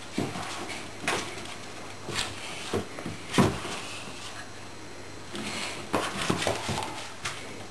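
Border Collie puppy's paws knocking and thumping on wooden floorboards as it jumps and scrabbles about in play, a series of separate knocks with a quicker run of them about three-quarters through.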